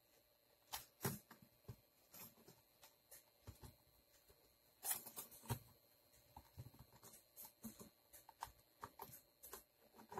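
Faint, scattered clicks and taps of fingers handling the plastic body of a JIE-STAR Air Musha X9 mini drone, with a short run of louder clicks about five seconds in.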